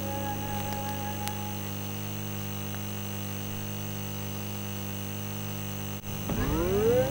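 Steady electrical mains hum from the turntable's playback chain, with no music playing. About six seconds in there is a click, then the record's music comes in sliding up in pitch as the turntable gets up to speed.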